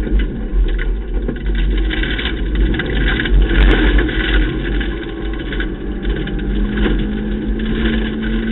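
Ford Ka rally car driven hard on a gravel stage, heard from inside the stripped cabin: the engine running loud and steady under a constant rumble of tyres on the loose surface, with a few sharp knocks from the car body about three and a half seconds in.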